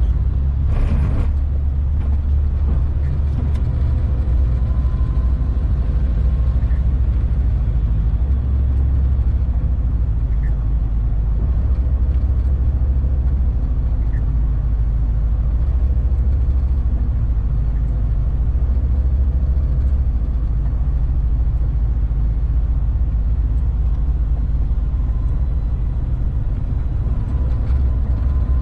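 Steady low rumble of a heavy truck's engine and tyres, heard from inside the cab while driving, with a brief hiss about a second in.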